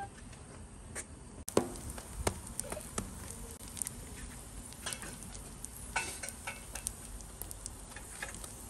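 Flatbreads cooking on a steel flat-top griddle with a faint, steady sizzle. A metal spatula clicks and scrapes against the griddle plate several times; the sharpest click comes about one and a half seconds in.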